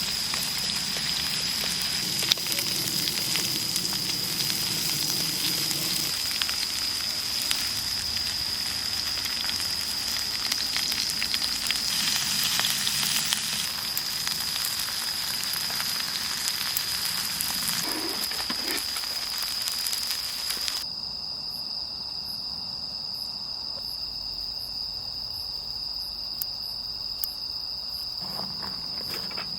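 Food frying and sizzling in a pan, with a steady high insect chorus of crickets behind it. About twenty seconds in, the sizzling cuts off suddenly and only the crickets' even trill is left.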